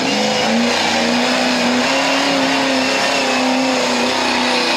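Extreme off-road 4x4 buggy's engine revving hard under load as it climbs a loose dirt slope. It rises in pitch just at the start, then holds at a steady high pitch.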